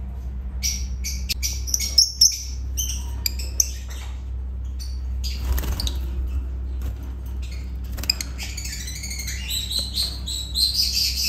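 Lovebirds chirping: many short, high chirps that grow busier and louder over the last few seconds, over a steady low hum.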